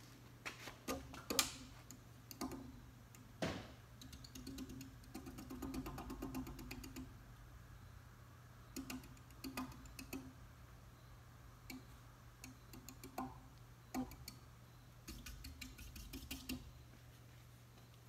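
Impressions five-blade ceiling fan running after being switched to reverse: a steady low motor hum with irregular clicks and knocks.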